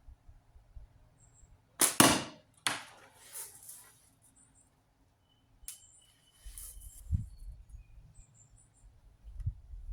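Slingshot shooting with heavy latex bands and steel-ball ammo: a loud band snap and whoosh about two seconds in, with a second sharp sound right after. A sharper click with a short ringing tone comes about six seconds in, like the ball striking the can.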